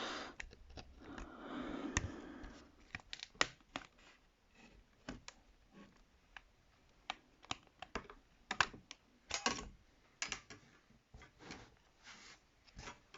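Scattered light clicks and taps of small plastic and metal tablet parts being handled and taken apart, at irregular intervals.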